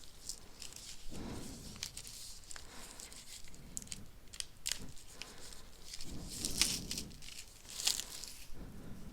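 Packaging of a tarot deck box being handled and opened by hand: crinkly rustling and tearing with scattered small clicks and taps, louder in a few brief spells.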